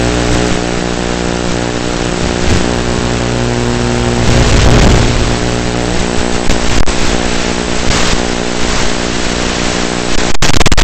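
Onboard sound of an E-flite UMX Turbo Timber's electric motor and propeller in flight: a steady droning hum of several tones, mixed with a rush of air that swells around the middle. About ten seconds in the sound cuts out for an instant and comes back louder.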